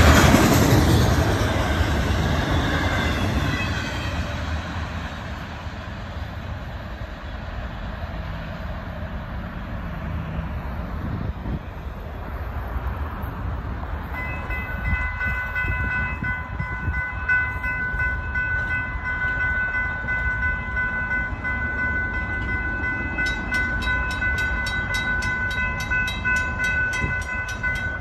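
The last cars of a Florida East Coast freight train roll past, the rumble fading over the first few seconds. From about halfway there is a steady ringing warning tone at the grade crossing, with a quick, even strike pattern in the last few seconds, stopping at the very end as a gate arm rises.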